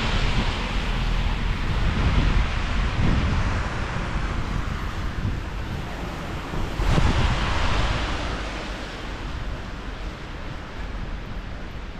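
Strong gusty wind buffeting the microphone, a deep rumble under a rushing hiss, with one gust near the start and another sudden gust about seven seconds in.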